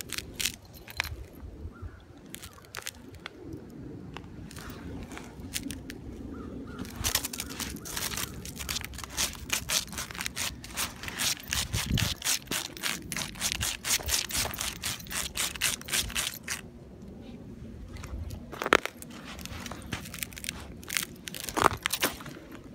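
A husky crunching and scraping at a crusty snow bank: scattered crackles, then a dense run of quick crunchy clicks through the middle, with two sharper knocks near the end.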